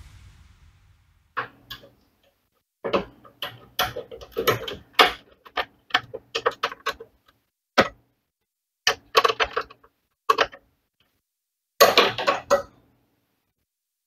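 Clicks, taps and light metallic knocks of a power supply being handled and screwed into a PC case, in irregular clusters, the loudest burst about twelve seconds in.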